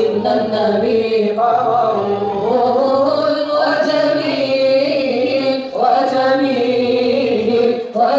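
Melodic Islamic devotional chanting, sung in long held phrases with brief breaks between them.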